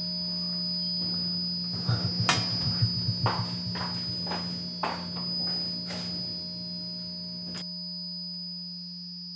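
A steady low drone tone from the film's score, with a run of sharp knocks from about two seconds in, most of them about half a second apart. The knocks stop near the end while the drone holds on.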